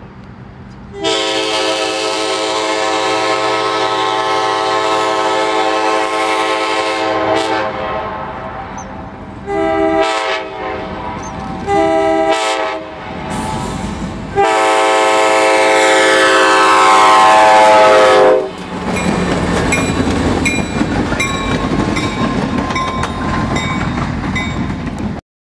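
Train horn on the leading cab car of a passenger-style inspection train sounding for a grade crossing: a long blast, two short ones, and a final long blast that drops in pitch as the train goes by. Then the rumble of the passing train, with wheels clicking over rail joints, until the sound cuts off suddenly near the end.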